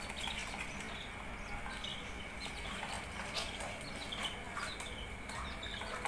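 Adult budgerigars giving faint, scattered short chirps. The owner takes them to be angry at having their nest taken away.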